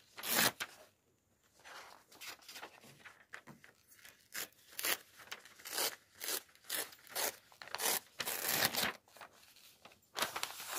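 A ruled notebook page being torn out along its binding in a series of short, uneven rips, with paper rustling between them.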